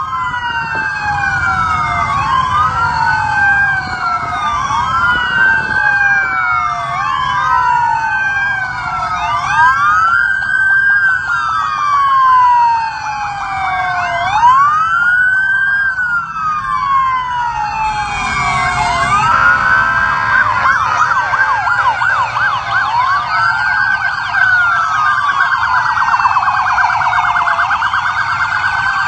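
Several police motorcycle sirens wailing together, their rising-and-falling sweeps overlapping about every second and a half. From about eighteen seconds in, faster yelping sweeps join them.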